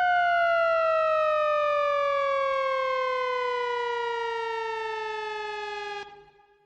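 A single buzzy, siren-like sound-effect tone sliding slowly and steadily down in pitch, then cutting off suddenly about six seconds in.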